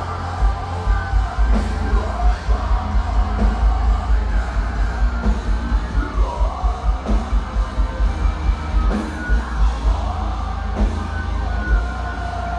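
Metalcore band playing live at full volume: heavy distorted guitars and bass over rapid, driving kick-drum hits, with shouted vocals over the top.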